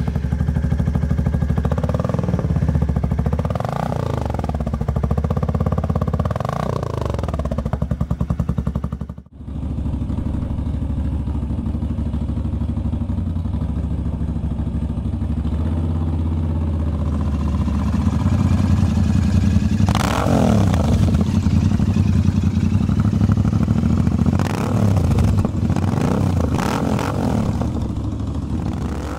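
Motorcycle engine idling with repeated throttle blips, the revs rising and falling several times. The sound drops out briefly about nine seconds in, then idles on and is revved again in the second half.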